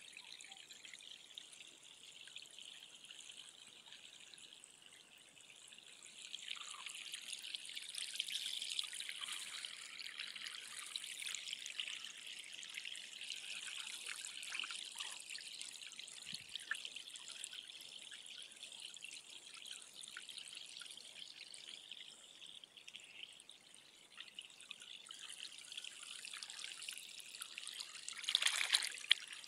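Shallow spring-fed rivulet trickling through grass, a steady small-stream sound that grows louder about six seconds in, with a brief louder rush of water near the end.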